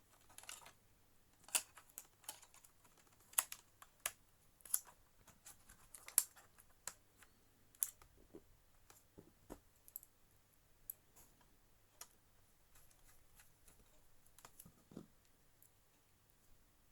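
Irregular sharp clicks and light taps of plastic and metal laptop parts being fitted by hand, about one every second at first, thinning out in the second half, with a soft low knock near the end.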